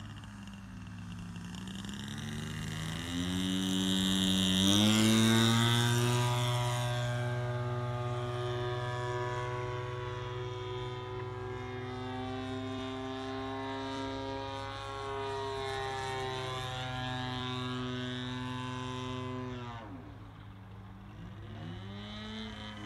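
Zenoah ZG-20 two-stroke petrol engine of a radio-controlled model Taylorcraft in flight, with its propeller. The engine note climbs over the first five seconds to its loudest, holds steady through the pass, then drops sharply about twenty seconds in and picks up again near the end.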